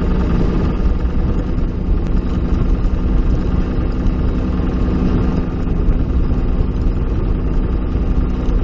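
Boat motor running steadily at cruising speed, an even drone that holds its pitch throughout.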